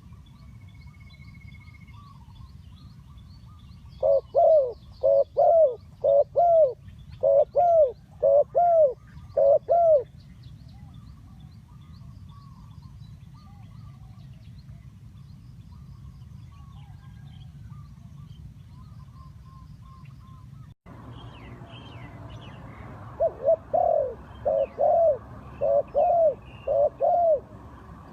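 Spotted dove cooing: two runs of short, arched coos, the first starting about four seconds in and the second near the end. Small birds chirp faintly behind it.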